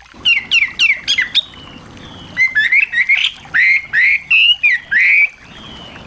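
Small songbird singing a loud, fast phrase: a quick run of falling notes, then a series of rising, looping whistled notes that stop a little past five seconds in.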